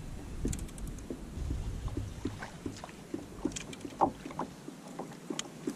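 Fishing kayak on calm water: a low rumble of water against the hull that fades out around the middle, with irregular small clicks and knocks of gear being handled on board.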